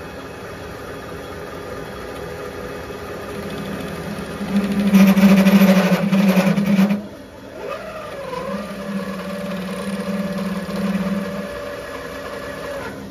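Mini-lathe driven by a 1 hp sewing-machine servo motor, spinning a pipe in its chuck while the tool cuts. The cut grows loud and rough about five seconds in and breaks off near seven seconds. The motor's whine then dips in pitch and wavers before settling: the servo's speed sagging on its own, which the owner puts down to vibration from the lathe bouncing on its rubber mounts.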